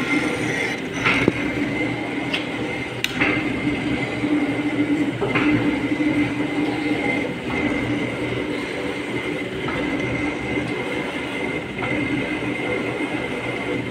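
Metal lathe running with a boring tool cutting the inside of a steel rock-breaker front head: a steady mechanical drone with a thin, steady high tone, and a few sharp clicks in the first few seconds.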